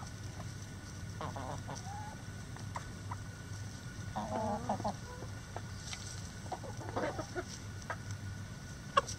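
Chickens clucking in a flock: short, scattered calls, loudest about four seconds in and again around seven seconds, with a sharp click near the end.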